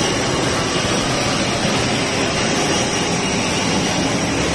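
Jet airliner engine noise on the ramp: a loud, steady rush of noise with a thin high-pitched whine over it.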